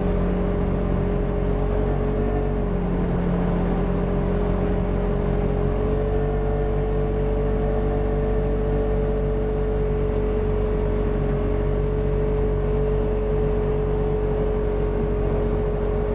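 Polaris RZR 1000 side-by-side's twin-cylinder engine running steadily under way, with a constant whine that shifts slightly in pitch about three seconds in and rises a little about six seconds in.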